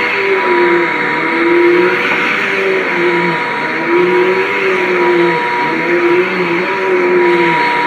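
Dirt Devil vacuum cleaner running steadily, its motor hum wavering, dipping and rising in pitch about once a second.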